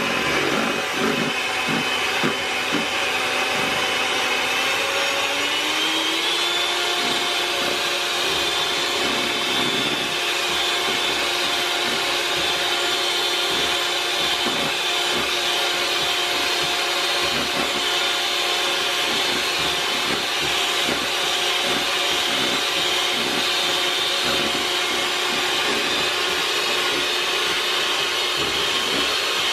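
Electric hand mixer running steadily, its beaters whipping instant coffee, sugar and hot water as the mixture thickens into foam. Its pitch rises over a couple of seconds about five seconds in, then holds steady.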